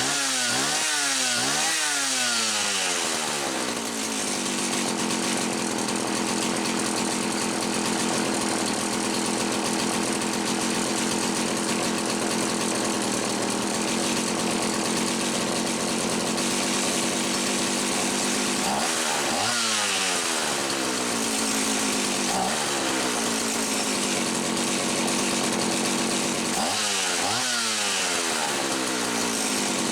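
Homelite 360 two-stroke chainsaw engine running steadily on a bench test, blipped up to speed in several quick revs near the start, again about two-thirds through, and once more near the end. It is being tried out after the carburetor needles were reset.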